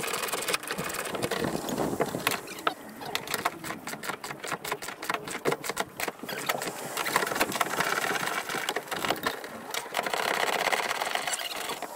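Socket ratchet clicking in rapid runs as seat-mounting bolts are worked loose from the van floor.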